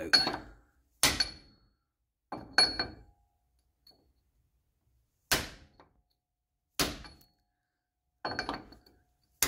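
Hammer blows on a 2-inch socket used as a seal driver, tapping a new inner axle seal into a Mopar 8 3/4 rear axle housing: about eight separate strikes, irregularly spaced, each with a short metallic ring. The owner thinks the socket was hitting the housing's bottom ring, knocking paint off.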